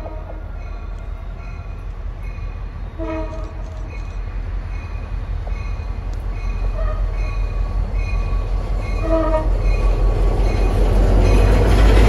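MBTA GP40MC diesel locomotive approaching with one coach and sounding its horn in short blasts about three seconds apart. The engine and wheel rumble grows steadily louder and is loudest near the end as the locomotive passes close by.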